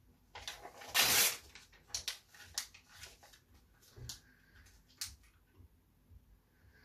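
Printed paper being bitten and torn with the teeth, a loud crackling tear about a second in, followed by scattered crinkles and crackles of the paper being chewed, and a sharp click about five seconds in.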